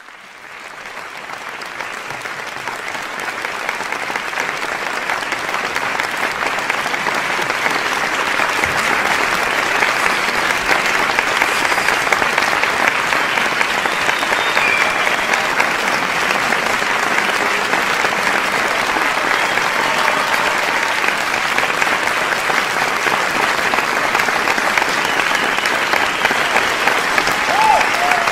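Audience applauding, fading in and growing louder over the first several seconds, then steady.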